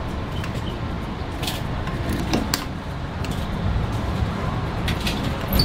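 A few sharp clicks from a claw machine being worked, over a steady low background rumble.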